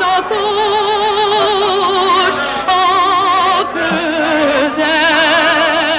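Music with singing: long held notes sung with a wide vibrato, the melody moving to new notes a few times.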